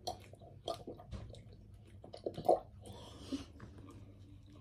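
Close-up chewing and eating sounds: a run of short, irregular wet mouth clicks and smacks as bread is chewed, one louder smack about two and a half seconds in.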